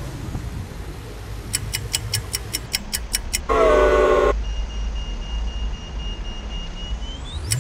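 Bicycle freewheel ticking rapidly as the rider coasts, then a loud horn-like blare lasting under a second. A thin steady high whine follows and rises in pitch near the end.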